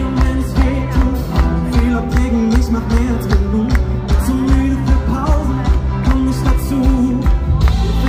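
Live pop band playing with a singer over the concert PA, drums keeping a steady beat of about two a second. Near the end the drums drop out and a held low chord rings on.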